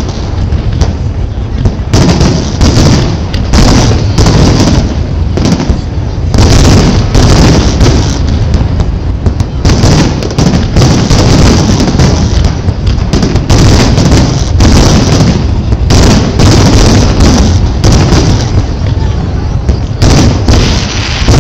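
Aerial fireworks display: shells bursting overhead in rapid, overlapping succession, a dense, loud run of booms and bangs with no pause between them.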